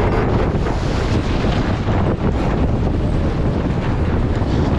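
Strong wind buffeting the onboard microphone, over water rushing past the hulls of an Extreme 40 racing catamaran under sail; a steady, loud noise with no distinct events.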